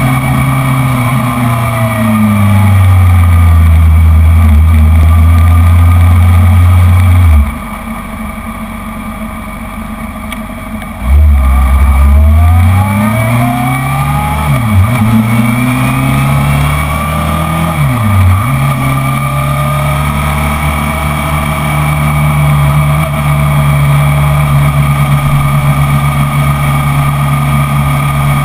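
Honda CBR600RR's inline four-cylinder engine running at low speed. Its sound drops away sharply about seven seconds in and picks up again near eleven seconds, then the revs rise with two short dips and settle into a steady drone for the rest.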